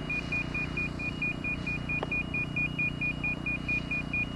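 Rapid, even electronic beeping, about five high-pitched beeps a second, over a steady low engine-like hum, with a faint click about two seconds in.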